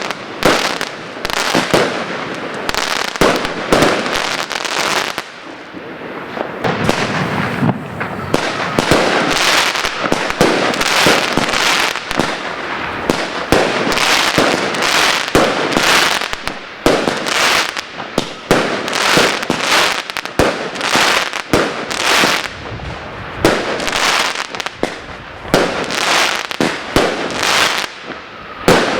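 Consumer fireworks from the Evolution Fireworks Happy Hardcore assortment going off: a long run of sharp bangs, about one or two a second, with crackling between them.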